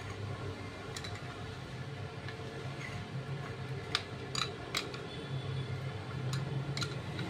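Sharp metallic clicks and taps from pliers working the clutch-shoe springs loose on a scooter's centrifugal clutch assembly. There is a single click about a second in, a quick cluster of three between about 4 and 5 s, and two more near the end, over a steady low hum.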